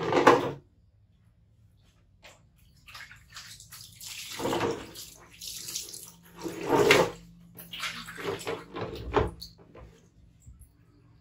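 Water poured from a plastic bowl over a baby monkey on a plastic stool, splashing and running off onto the tile floor in several pours. It opens with a short plastic clatter, the loudest sound.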